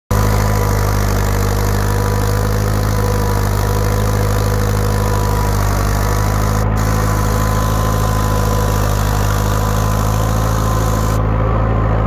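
Old tractor engine running steadily under load while pulling a plough through heavy ground, with a thin steady whine above the low engine note.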